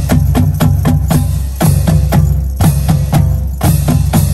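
Marching band music: sharp drum strokes at a quick, even beat, about four to five a second, over sustained low notes.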